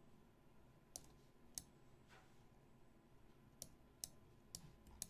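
Faint, sharp clicks of a computer mouse: six in all, two about a second in and four closer together in the second half, as moves are made on an on-screen chessboard.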